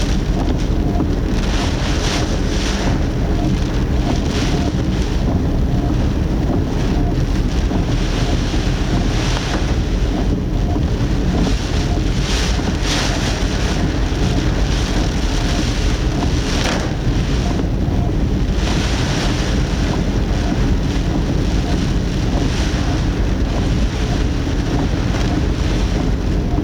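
Typhoon wind and rain heard from a car's dashcam: a loud, steady low rumble of wind buffeting, with irregular brief rushes of gusts and rain every few seconds.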